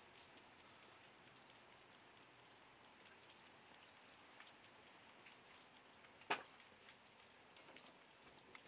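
Faint light rain pattering, with many small scattered drop ticks and one sharper click about six seconds in.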